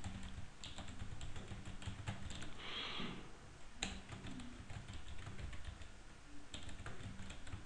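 Typing on a computer keyboard: a quiet, irregular run of key clicks.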